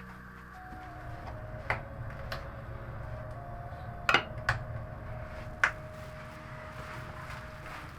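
Five sharp clinks and knocks of small hard objects spread over several seconds, the loudest pair about four seconds in, over a low steady hum.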